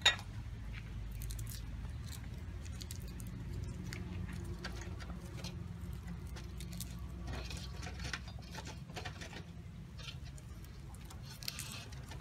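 Fingers peeling the papery skins off crushed garlic cloves, a run of small irregular crackles and rustles. A single sharp knock of the cleaver on the wooden chopping board comes right at the start.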